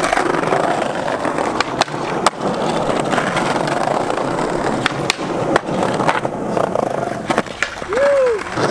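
Skateboard wheels rolling over brick paving, a steady rumble broken by several sharp clicks and knocks from the board. Near the end there is a short rising-and-falling tone.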